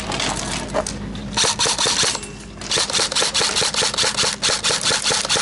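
Airsoft electric guns (AEGs) firing full-auto: a short burst of rapid clicks about a second and a half in, then after a brief pause a longer rapid burst lasting several seconds.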